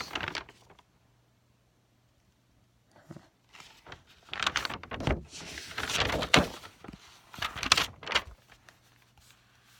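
Handling noises: a few bursts of rustling and scraping with some knocks, from about three seconds in until near the end.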